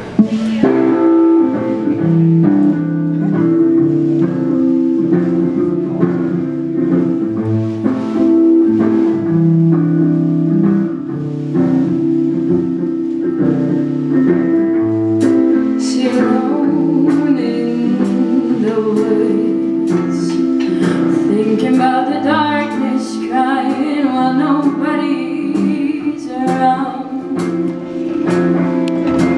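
Live full band playing a song: electric guitar and bass open it, drums come in about halfway, and a woman sings over them in the second half.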